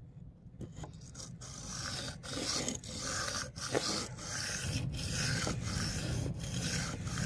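Spyderco PM2 Wharncliffe blade being sharpened freehand on a wet, coarse 100/80-micron sharpening stone: steel rasping across the stone in back-and-forth strokes, roughly one to two a second. The strokes grow stronger about two seconds in.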